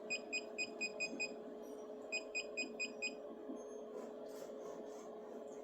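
Elegoo Neptune 4 Max's touchscreen beeping in two quick runs of short high beeps, about five a second, one run just after the start and another about two seconds in. Each beep marks a button tap stepping the nozzle down toward the paper during Z-offset calibration. Under the beeps runs a steady low hum.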